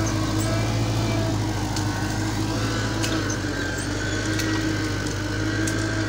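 Diesel engine of a Caterpillar crawler track loader running steadily at working revs, a deep even drone with a faint high whine above it.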